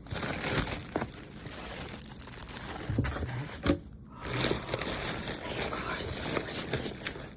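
Packaging crinkling and rustling as cookware pieces are unwrapped by hand, with a few light clicks. It pauses briefly about four seconds in.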